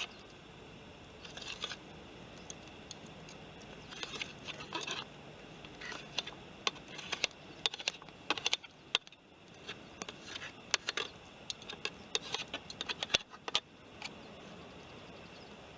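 Light clinking and scraping of small hard objects, in irregular clusters of quick clicks about a second long, a few seconds apart.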